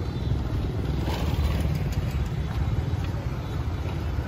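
Busy city street ambience: a steady low rumble of passing traffic with faint scattered higher sounds.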